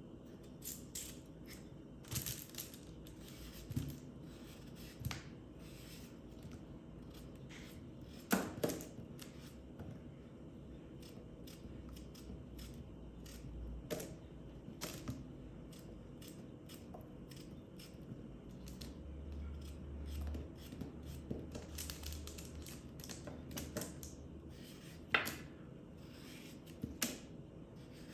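Knife cutting raw peeled potatoes into chunks in the hand: irregular crisp cuts and small taps as the pieces drop onto a parchment-lined metal baking tray, the sharpest about 8 seconds in and about 25 seconds in.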